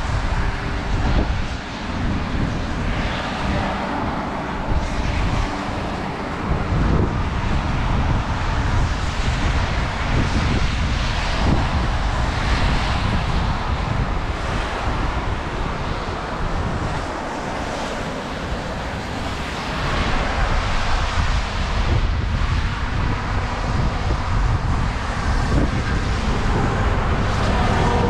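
Gusty wind on the microphone, buffeting in the low end, over a steady wash of rain and passing traffic on wet roads.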